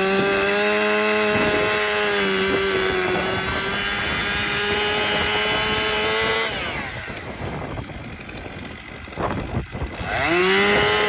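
Gas chainsaw cutting into a large white oak log, running steadily at full throttle under load. About six and a half seconds in it drops back toward idle, then revs up high again near the end.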